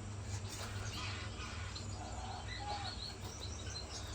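Many small caged finches chirping with quick, high, short calls, over a steady low hum.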